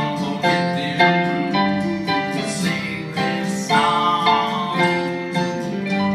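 Electronic keyboard playing a song's instrumental passage: chords and a melody over a steady beat.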